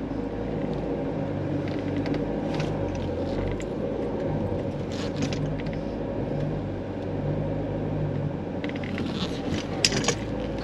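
Campervan engine running steadily at low speed, heard from inside the cab, with its low hum swelling and easing. A few sharp clicks and knocks come about nine seconds in.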